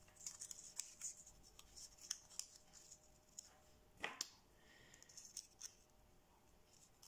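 Faint crinkling and small clicks of thin kami paper being folded and tucked by hand, with one sharper click about four seconds in.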